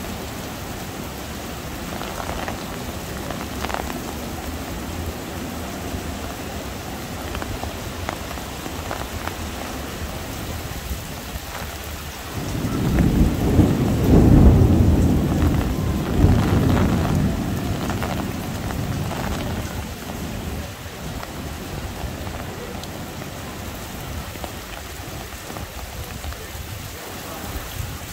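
Heavy rain falling steadily, with a long roll of thunder that starts about twelve seconds in, swells twice and dies away over several seconds.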